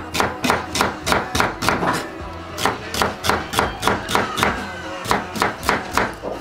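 Kitchen knife chopping celery on a bamboo cutting board, a steady run of sharp strikes at about three a second with a brief pause about two seconds in. Background music plays underneath.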